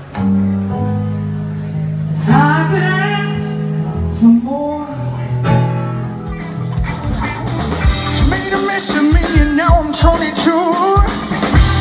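Live rock band playing loud: held bass and guitar notes under a singer's gliding voice, then, about halfway through, a different band with a steady drum-kit beat, electric guitars and a man singing.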